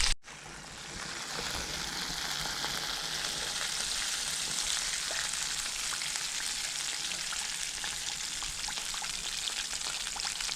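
Flour-coated chicken pieces deep-frying in hot oil: a steady sizzle with scattered fine crackles, settling in over the first second.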